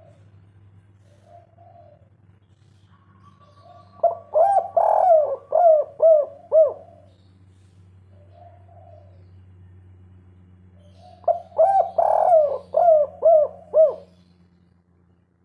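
Spotted dove (tekukur) singing its kuk-3 song twice, each phrase a run of about six or seven quick coos. Softer coos come in between, over a low steady hum.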